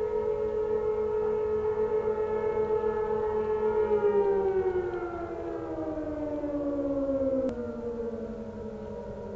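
Several outdoor warning sirens sound the steady alert signal of a weekly test together, their tones overlapping at different pitches. About four seconds in, the loudest one winds down, its pitch falling, while the others carry on steady.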